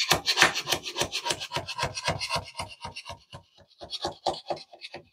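A white plastic wedge tool scraping rapidly back and forth over static cling window film, tucking the film's edge into the window frame's lip. The strokes come about eight a second, then thin out and grow fainter over the last couple of seconds.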